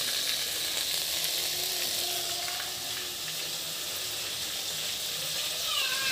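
Food sizzling in a hot pan, a steady hiss, with a few short high falling chirps near the end.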